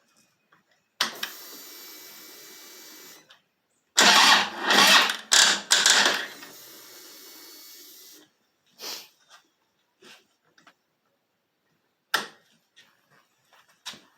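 Electric starter of a Harley-Davidson 103 Twin Cam V-twin cranking off a lithium jump starter: a steady whirr, then a couple of seconds of slow, heavy, uneven cranking strokes, and the engine does not fire. The jump starter is struggling to turn the big twin over. A few sharp clicks follow.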